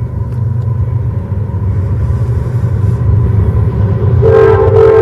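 Freight train rumbling past close by, growing louder. About four seconds in, a locomotive horn starts up with a steady chord.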